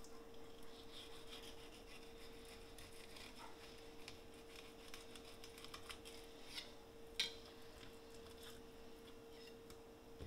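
Faint scraping and tapping of a fillet knife on a wooden cutting board as skin is cut from walleye fillets, with one sharper knock about seven seconds in. A steady faint hum runs underneath.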